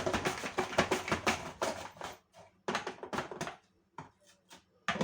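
An apple being sliced on a mandoline slicer, a fast run of scraping cutting strokes at about five a second for two seconds, then a shorter run and a few light clicks.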